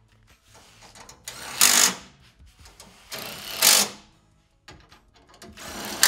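Pneumatic air ratchet running in three short bursts, each about a second long, as it runs down and snugs the grille's top mounting bolts.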